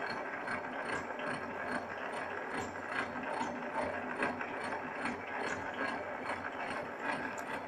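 Horizontal milling machine running, its multi-point gear cutter cutting a tooth space in a spur gear blank under slow up-milling feed: a steady, rapid rattling clatter.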